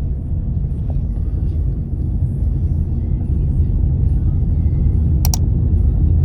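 Steady low rumble of a car on the road, heard from inside the vehicle, with a single sharp click about five seconds in.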